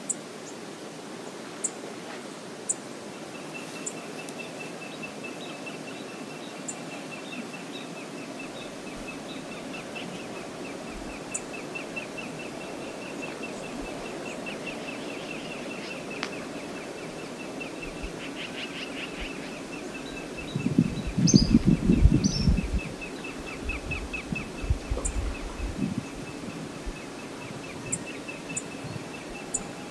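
Steady rush of river water with scattered short, high bird chirps and a long, fast-pulsing high trill. About twenty seconds in, a few seconds of louder low thumping noise.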